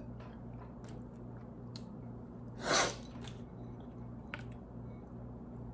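Close mouth sounds of a person eating: soft wet chewing clicks, with one short, loud breathy rush about two and a half seconds in.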